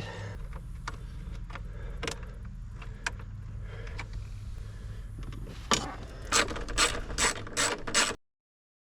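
A hand tool clicking as screws are worked out of the car's dashboard console trim, with a few scattered clicks and then a quick run of clicks near the end, over a low steady hum. The sound cuts off abruptly just before the end.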